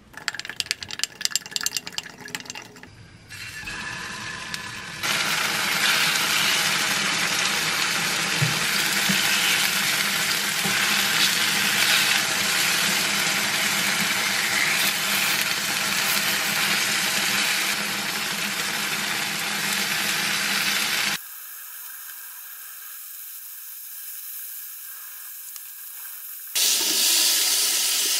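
A spoon clicking against a glass beaker as curry powder is stirred into water, then tofu slices sizzling steadily in a hot oiled frying pan. The sizzle drops to a quieter hiss for several seconds near the end and then comes back loud as curry water hits the pan.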